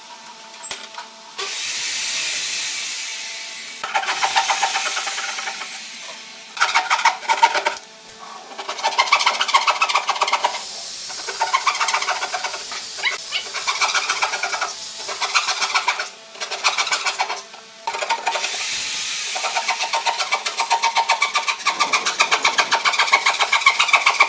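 Wooden-armed scroll saw cutting a curve in a pine board, its blade chattering in fast, even strokes over a steady motor hum. It stops briefly several times and starts again.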